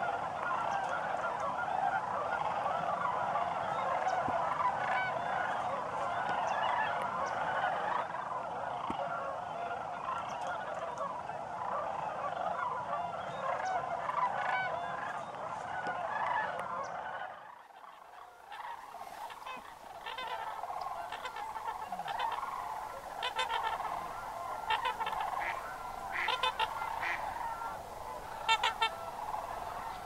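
A dense chorus of many sandhill cranes calling at once as flocks pass overhead. About halfway through the sound drops away briefly, then the chorus comes back with scattered sharper, higher calls standing out above it.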